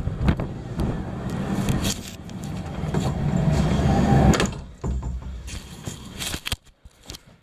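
Blizzard wind buffeting the microphone, dropping away suddenly about four and a half seconds in, followed by a few clicks and knocks.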